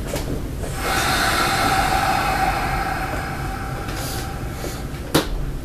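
Kintetsu 1259 series electric railcar standing at the platform, heard from inside the car: a steady tone swells about a second in and fades over the next few seconds, then one sharp clack near the end as the train starts to move.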